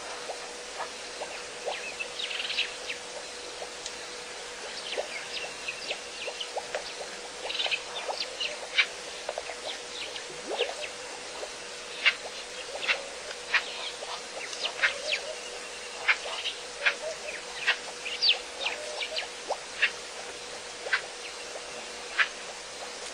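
Birds chirping, short sharp calls coming irregularly and more often in the second half, over a steady faint hum.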